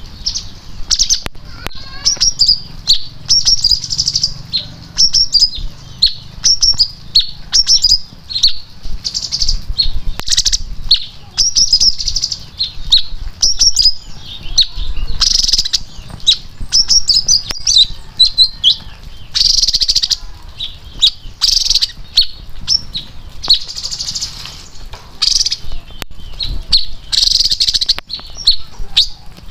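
A caged leafbird singing: a long run of rapid, high chirps and whistled notes, phrase after phrase with only short gaps.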